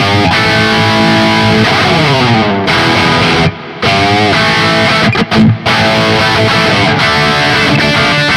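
Höfner 4575 electric guitar played through distortion: loud sustained chords and notes with string bends that glide in pitch. The sound breaks off briefly twice in the middle.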